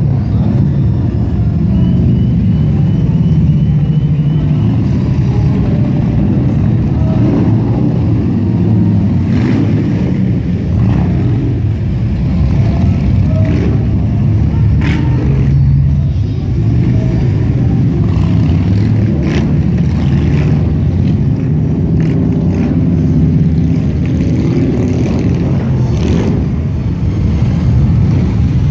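A procession of large touring motorcycles riding slowly past one after another, their engines running loudly and continuously, with a few short sharp sounds over them.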